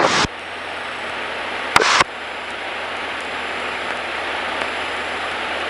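Cessna 152's four-cylinder Lycoming engine as heard through the cockpit intercom, a steady hissing drone that slowly grows louder as the plane sits lined up on the runway for takeoff. Two short bursts of noise cut in, one at the start and one just under two seconds in.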